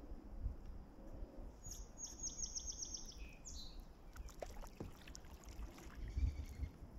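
A songbird's rapid trill of about ten quick high notes, starting about a second and a half in. Underneath are kayak paddle strokes dripping and splashing and a low rumble of wind on the microphone.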